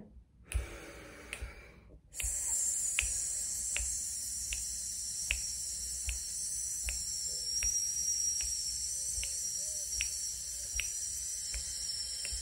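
A woman's long, steady hissed 'sss' on a slow out-breath, starting about two seconds in, with finger snaps keeping an even beat of about four snaps every three seconds. It is a diaphragmatic breathing exercise: air let out slowly and evenly on the S sound to a count.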